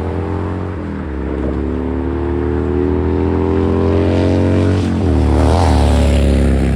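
Diesel locomotive engine running under load as a freight train passes, its tone climbing slowly for several seconds and wavering about five seconds in.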